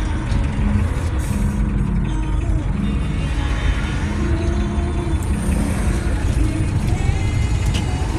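Slow-traffic road noise heard from a moving car, with the engine rumble of a heavy articulated truck passing close alongside. Music plays underneath.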